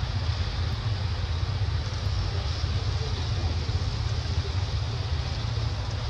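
Wind buffeting the microphone: a steady low rumble with an even hiss over it.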